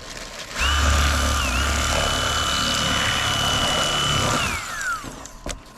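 Electric fillet knife running as it cuts fish: a steady motor whine that starts about half a second in, dips briefly in pitch a second later, then falls in pitch and dies away as the knife is switched off.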